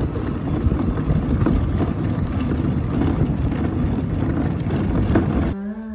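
Hard plastic wheels of a toy ride-on car rolling and rattling over rough asphalt as it is pushed along, a continuous clattering rumble that stops abruptly near the end.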